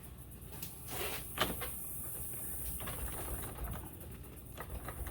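A few light clicks, knocks and scrapes of motorcycle parts being handled and worked loose by hand, the sharpest about a second and a half in.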